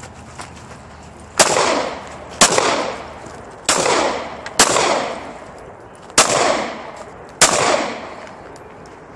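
Handgun fired six times in three pairs about a second apart, each shot sharp and followed by a long echoing tail.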